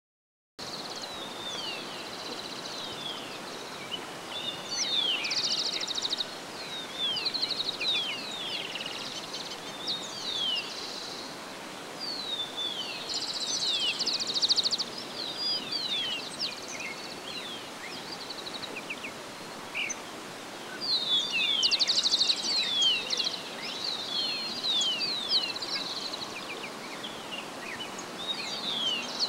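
Marsh birds calling: many short, falling chirps, with bursts of buzzy rattling calls about five, fourteen and twenty-two seconds in, over a steady background hiss.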